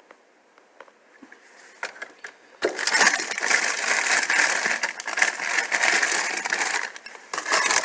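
Close, dense crackling and rattling of things being handled. It starts suddenly about two and a half seconds in, with many sharp clicks, dips briefly near the end, then picks up again.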